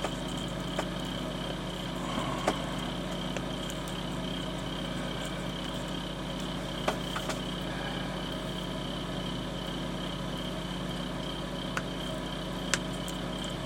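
Steady low background hum with a thin high whine above it, and a few faint clicks scattered through.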